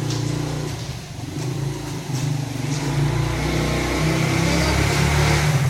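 A motor vehicle's engine running close by, growing louder and revving up toward the end.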